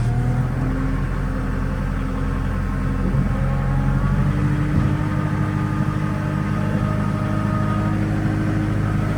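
Kubota compact tractor's diesel engine running steadily, its note shifting slightly a couple of times.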